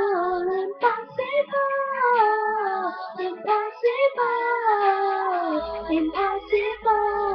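A boy singing a slow pop ballad, holding long notes that slide from pitch to pitch without clear words, with no backing music.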